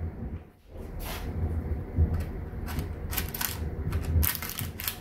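Metal fork clicking and scraping against a paper tray while spearing pieces of sliced hot dog: a string of short light clicks and scrapes, more of them in the second half, over a low steady hum.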